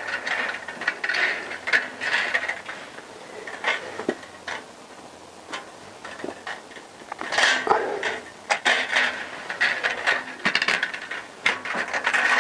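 Head gasket being worked down over the cylinder studs of a Honda CBR1000F engine block by hand: light metallic scraping, rattling and clicks as it catches on the studs. It goes quieter for a few seconds in the middle, then the scraping and clicking pick up again.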